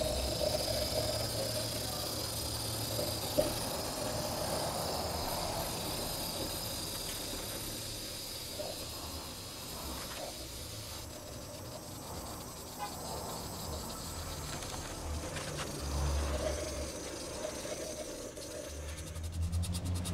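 Handheld gas torch hissing steadily as its flame burns the soft bark on a wooden vessel.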